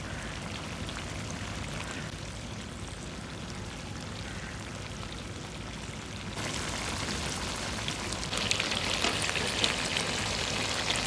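Chicken karahi sizzling and frying in a steel wok, a steady hiss that gets louder about six seconds in and brighter a couple of seconds later.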